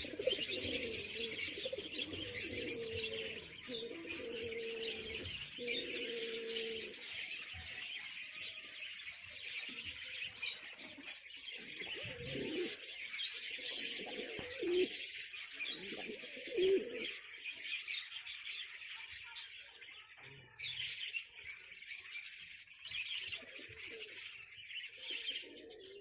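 A flock of fancy pigeons cooing: a run of steady coos in the first seven seconds, then several long, swelling coos between about 12 and 17 seconds in, and a few more near the end. Over it, small birds keep up a dense chatter of chirping.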